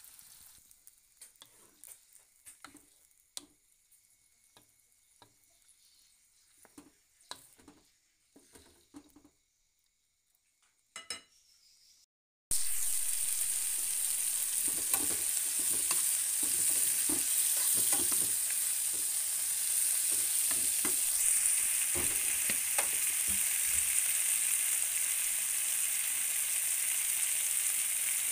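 Food frying in oil in a wok and pan. For the first half there is a faint sizzle with scattered clicks of a utensil stirring. After a short dropout about halfway through, a loud, steady sizzling takes over, with a few knocks.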